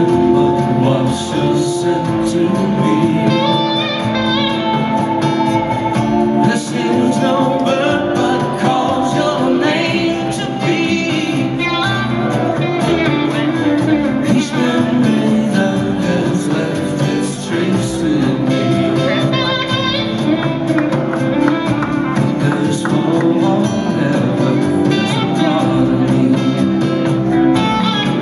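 A live band plays a slow song: acoustic guitar and electric guitar, with singing.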